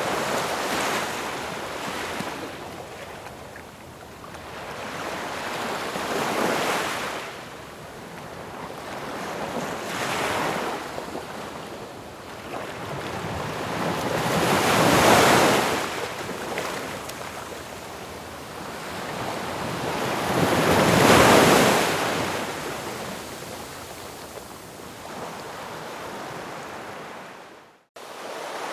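Ocean waves breaking and washing in, swelling and fading every few seconds, with the two loudest breakers in the middle. The sound cuts out suddenly for a moment near the end.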